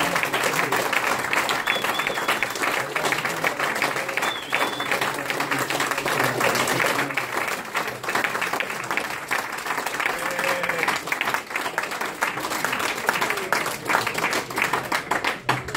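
Audience applauding steadily, with a few voices among the clapping, thinning to scattered claps near the end.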